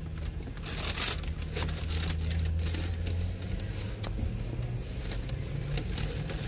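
Low steady hum of a car idling, heard inside the cabin, with a paper fast-food bag rustling and crinkling in short bursts on top.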